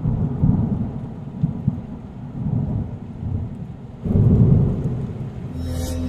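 Wind buffeting an outdoor microphone: a low, gusting rumble that eases off and swells again about four seconds in.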